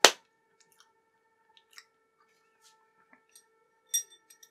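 A sharp short knock at the very start, then a faint steady whine with scattered light ticks and a brief clink about four seconds in: noise from the neighbouring house.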